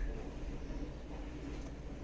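Quiet room tone with a low steady hum; no distinct knocks or other events.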